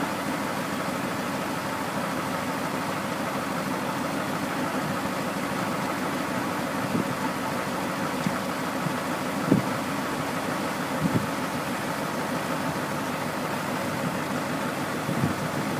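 Truck engine idling steadily while the end dump trailer's multi-stage hydraulic hoist raises the steel box. A few short knocks come partway through and again near the end.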